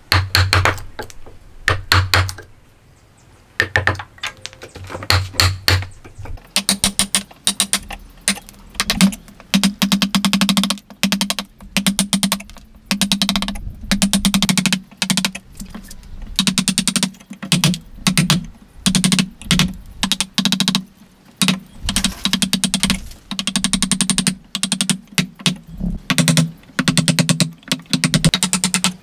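Wood chisel being struck in quick runs of sharp taps as it chops into a clamped timber block to cut a joint, the taps coming in bursts with short pauses between. From about six seconds in, a low ring sounds under each burst.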